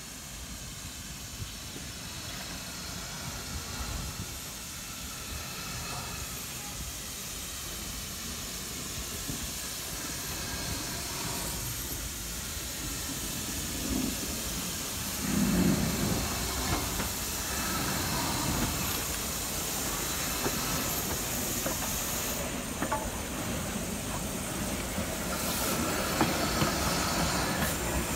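Steam hissing from GWR 1500 class pannier tank locomotive No. 1501 as it runs slowly toward and alongside, growing steadily louder as it nears, with a few sharp clanks in the last few seconds.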